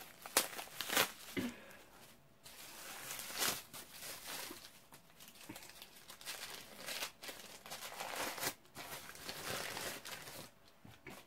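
Brown paper packaging crinkling and tearing in irregular bursts as it is unwrapped from a small candle jar by hand.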